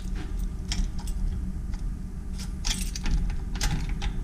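Irregular clicks and light rattles of a small object being handled close to the microphone, over a steady low rumble.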